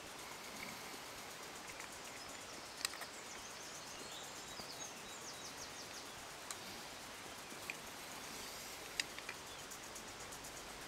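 Quiet outdoor background: a steady faint hiss with birds chirping in the distance, including a short rapid trill partway through, and a few small clicks.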